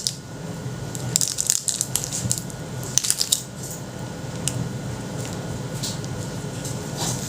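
Short bouts of crinkly crackling as foam clay and its plastic sticker frame are squeezed and pressed by hand.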